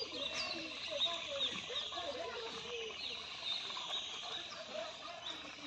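Birds chirping over and over in short, high calls, with scattered short, lower-pitched calls mixed in.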